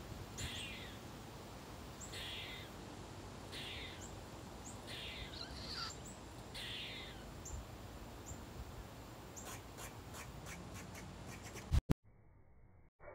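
Eastern gray squirrel giving a series of five harsh, raspy alarm calls about a second and a half apart, the kind it makes at a cat. Faint ticks follow, then one sharp click near the end.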